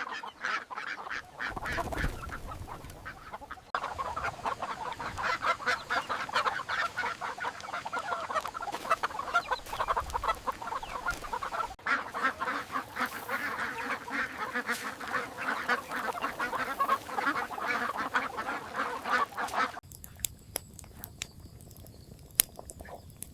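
A flock of ducks quacking and chattering continuously, many overlapping calls. Near the end the calls stop and a few sharp clicks and taps follow.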